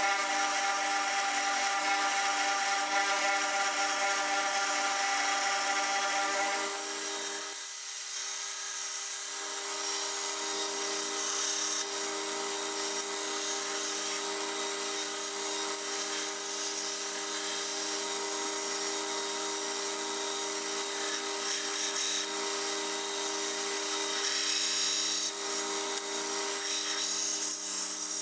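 2x72 belt grinder running with a steady motor hum, a hardened ball-bearing-race steel blank held against the belt and ground to shape with a continuous hiss. About a quarter of the way in the hum changes tone and dips briefly, then runs steadily again.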